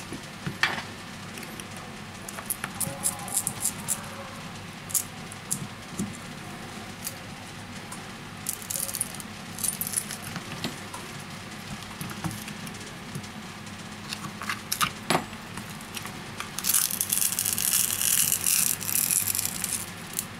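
A glued-in Huawei P Smart battery being pried off its strong adhesive tape: scattered small clicks and taps of fingers and a metal tool on the phone, then a few seconds of crackling as the tape tears loose near the end.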